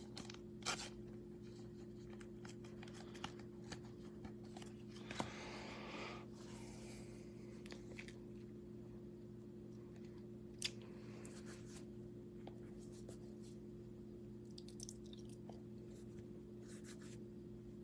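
Faint room tone with a steady low hum, broken by a few soft clicks and a brief rustle of trading cards and plastic card sleeves being handled.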